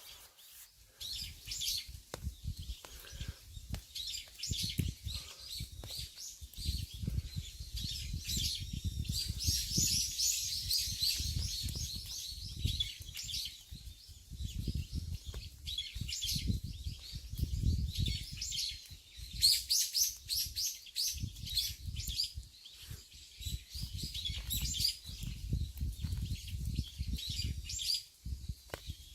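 Small songbirds chirping and twittering in quick runs of high notes, busiest in the middle and again toward the end, with irregular low rumbling underneath.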